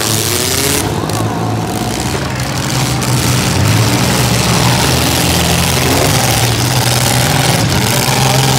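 Several demolition derby cars' engines running and revving at once, loud and steady, with the pitch rising and falling as the cars manoeuvre.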